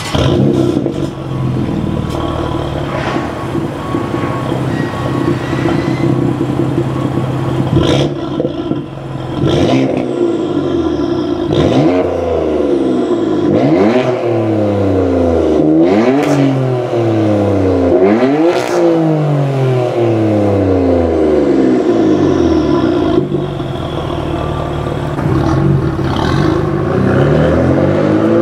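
BMW F82 M4's twin-turbo inline-six firing up through a Remus axle-back exhaust with Active Autowerke mid-pipes, then idling steadily. Starting a bit before halfway, it is blipped in about five light revs, the pitch rising and falling with each, before settling back to idle. Near the end the pitch starts to climb again as the car pulls away under light throttle.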